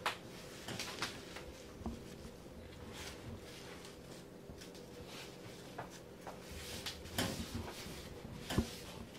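Scattered light knocks, clicks and rustles of handling: a paper tissue wiped over a turtle's face and the turtle's shell shifting on a steel exam table, the sharpest knock near the end, over a faint steady hum.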